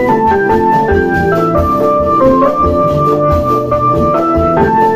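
Electronic keyboard playing an organ-voiced melody over a steady, quick beat, sounded loud through large horn loudspeakers for obrog, the Ramadan pre-dawn wake-up music.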